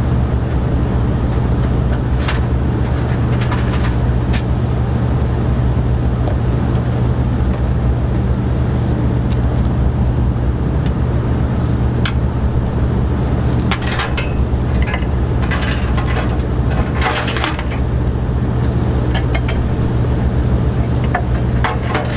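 A steady low mechanical hum runs throughout, with scattered metallic clinks and knocks from hand work on a forklift's mast and lift chain.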